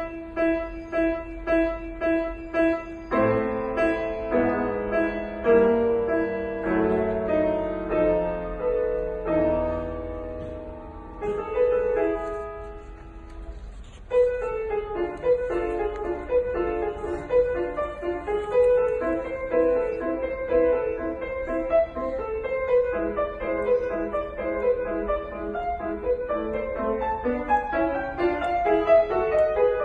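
Solo grand piano playing classical music. It opens with evenly spaced repeated chords, about two a second, then slower held chords that grow softer until a quiet spot near the middle. After that a louder passage of rapid running notes begins suddenly.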